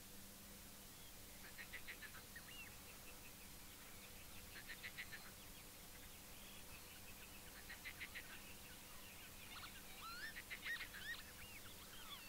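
Faint birdsong: short, rapid trills about every three seconds, with a cluster of quick rising and falling chirps near the end.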